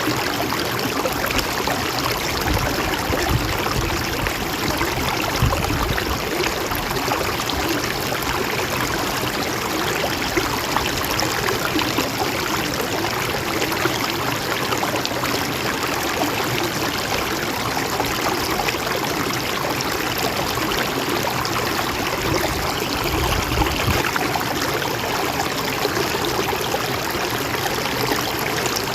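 A mountain stream running steadily over rocks, a continuous trickling rush of water.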